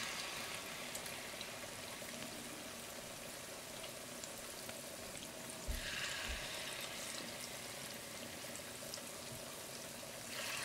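Banana-batter fritters deep-frying in hot oil in a small iron kadai: a soft, steady sizzle with fine crackles. It swells three times, at the start, about six seconds in and near the end, as fresh drops of batter go into the oil.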